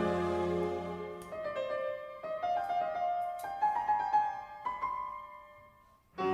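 Background piano music: a held chord, then a slow run of single notes climbing in pitch that fades away near the end.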